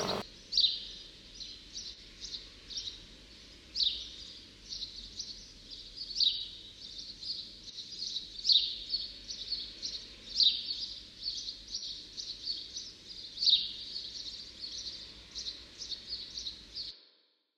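Birdsong: many short high chirps and trills, with a louder downward-sweeping call every two to three seconds. It cuts off abruptly near the end.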